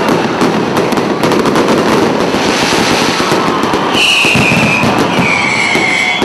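Fireworks going off, with rapid crackling bangs throughout. From about four seconds in, a loud high whistle sounds, dropping slightly in pitch.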